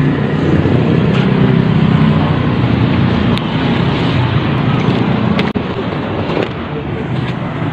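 Small motorcycle engine running steadily at idle while its stator, wired as full wave, is checked for charging output.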